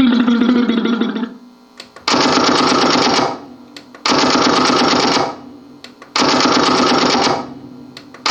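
A canned sound effect from a voice-changer effects unit: a fast rattling sound about a second long, triggered four times at roughly two-second intervals, each time starting and stopping abruptly and sounding identical.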